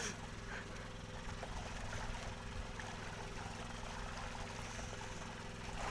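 Small engine running with a steady, even hum, alongside faint splashing of sea water at the boat's side.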